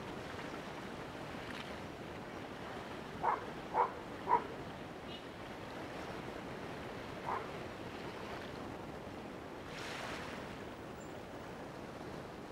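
Steady wind and water noise at the shoreline, with three short calls about half a second apart a little past three seconds in and a single call a few seconds later.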